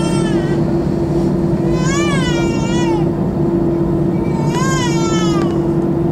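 Airbus A321 cabin during taxi: the engines' steady drone with a constant hum tone. Over it, a baby cries three times, each cry a wail about a second long that rises and falls in pitch.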